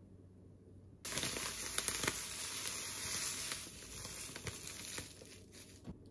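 Plastic bag of panko breadcrumbs crinkling as it is handled and tipped, with the crumbs pouring out onto a plate. It starts suddenly about a second in and fades out near the end.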